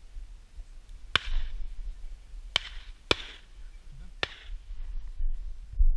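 Four sharp cracks at uneven intervals, each trailing off in a brief hiss, over a low wind rumble.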